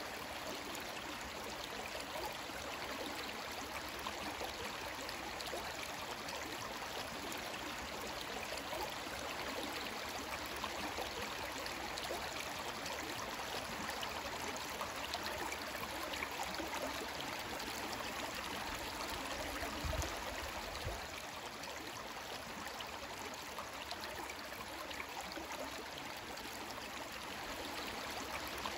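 Creek water running steadily, an even rushing sound with no change in rhythm. A brief low bump sounds about two-thirds of the way in.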